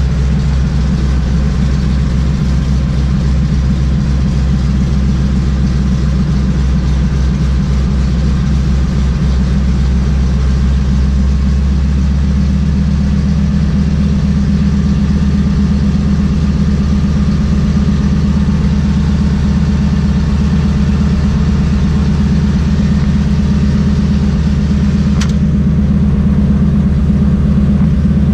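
Floatplane's single piston engine running at low taxi power, heard from inside the cockpit as a steady, loud drone with the propeller turning slowly.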